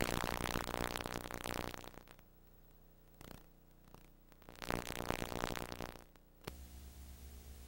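Two loud synthesizer-like swells, the second ending with a click about six and a half seconds in, after which only a steady low electrical hum remains.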